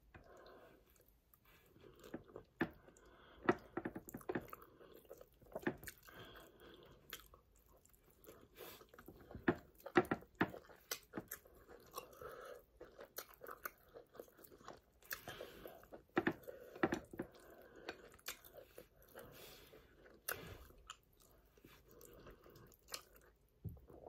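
Close-miked chewing and eating sounds: a person eating pounded yam and spinach sauce by hand, with irregular mouth clicks and smacks.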